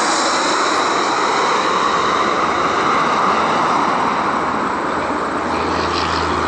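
Jet engines of a rear-engined McDonnell Douglas DC-9-family airliner passing low overhead on landing approach with gear down: a loud, steady rush of jet noise that eases slightly near the end.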